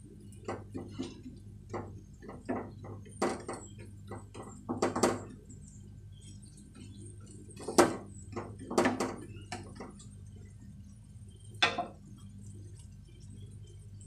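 Wooden spatula tapping and scraping against a nonstick frying pan while it presses an omelette's edges, in irregular knocks, the sharpest about eight seconds in, over a low steady hum.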